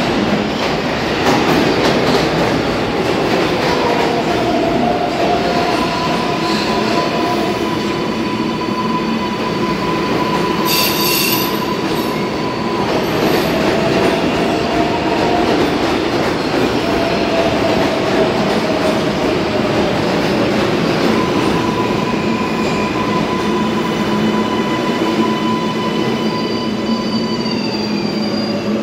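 R142A subway train running into the station and braking to a stop: a steady rumble of wheels on rail with thin wheel-squeal tones and a brief high-pitched burst about eleven seconds in. Near the end a whine falls in pitch as the train comes to a halt.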